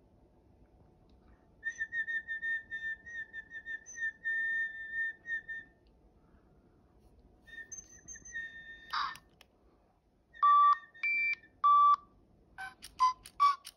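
A warbling whistle held for about four seconds, then a shorter whistle and a sharp click. Then a Digi Penguins toy penguin answers with three loud electronic beeps and a quick run of shorter beeps, reacting to the whistle.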